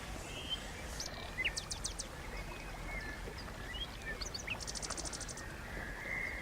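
Small birds chirping and calling, with scattered short high notes and a rapid high trill about three-quarters of the way through. Under them is a steady low background rumble.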